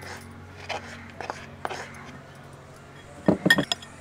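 Metal spoon clinking against a glass bowl while stirring jaggery: a few light taps, then a quick run of louder clinks near the end.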